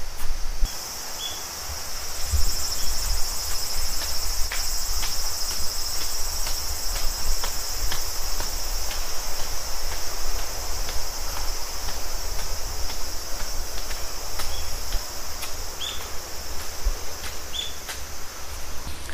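A steady, high-pitched chorus of insects buzzing outdoors, starting just under a second in and holding. Underneath it runs a loud low rumble, with scattered light clicks.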